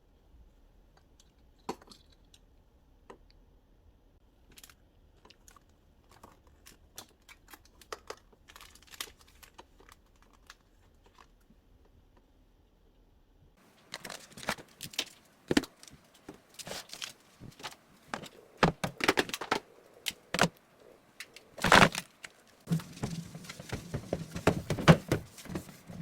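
Hands handling plastic packaging and containers: scattered light clicks and taps, then, about halfway through, a louder, busier run of crinkling, rustling and knocks.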